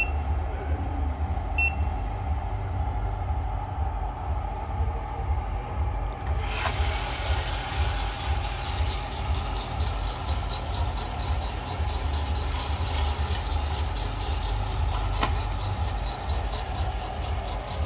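Coffed SRE 500 electric coffee sample roaster running with a steady low hum, its touchscreen control panel giving two short beeps near the start as it is pressed. About six seconds in, a hiss with a fast even rattle joins the hum and continues.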